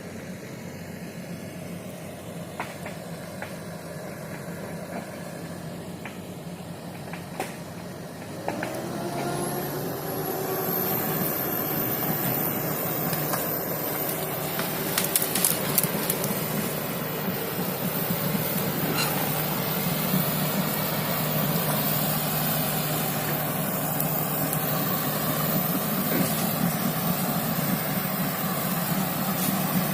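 Komatsu hydraulic excavator's diesel engine running quietly, then revving up about eight seconds in with a rising high whine, and running steadily at higher revs after that. A few sharp cracks near the middle.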